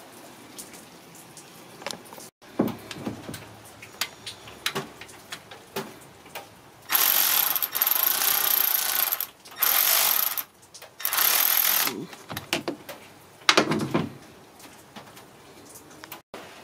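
Ratchet wrench ratcheting in three quick runs, loud and dense, among scattered clinks and knocks of tools on metal.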